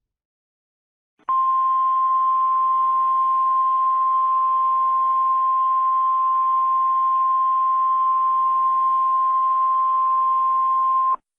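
Emergency alert tone: one steady, unbroken electronic beep of a single pitch, as NOAA Weather Radio sounds before a broadcast, starting about a second in and holding for about ten seconds before cutting off abruptly.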